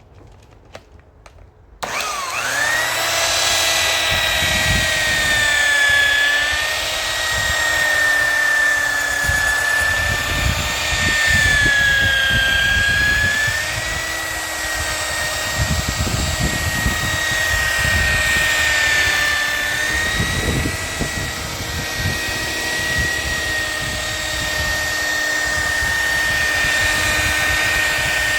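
An electric car polisher switches on about two seconds in and runs steadily with a high whine, its pitch sagging now and then as the pad is pressed into the paint. This is the polishing stage after wet sanding and cutting fresh automotive paint.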